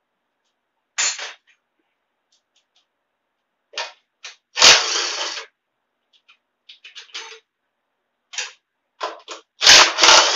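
Cordless impact driver run in short bursts, backing out bolts. The longest and loudest bursts come about halfway through and near the end, with smaller clicks and rattles between them.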